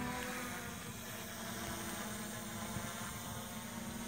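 Hubsan H501S quadcopter drone flying overhead, its four brushless motors and propellers making a steady high buzz with a fixed hum under it.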